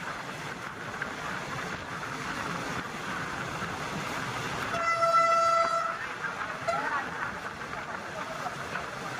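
Steady noise of a train, with one train horn blast lasting about a second a little past the middle.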